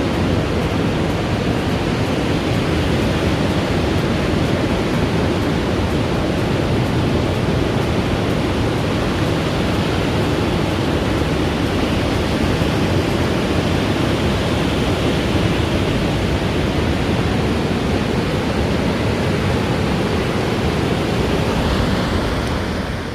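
Steady loud rushing noise of sea surf and wind at the shore, heavy in the low end, fading out at the very end.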